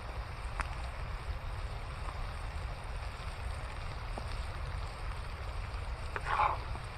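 Steady rushing of a waterfall, with a few faint clicks and a brief louder scrape or clatter near the end.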